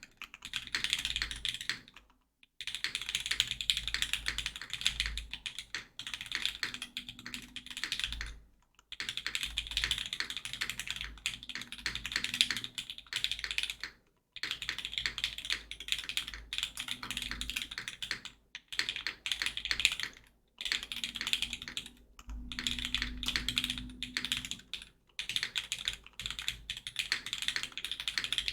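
Fast typing on a Geonworks F2-84 mechanical keyboard with lubed linear Cherry Hyperglide MX Black switches in an aluminium plate and GMK keycaps: a dense run of keystrokes, with a short pause every few seconds.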